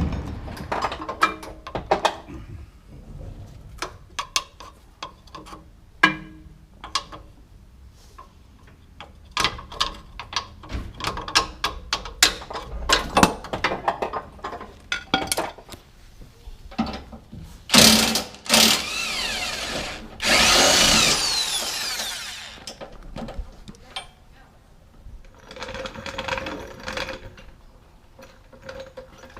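Scattered metal clanks and clicks of tools and suspension parts being handled during rear strut and coil removal, then a power tool spinning up loudly in a short burst and a longer run with its pitch rising and falling, and a fainter whir a few seconds later.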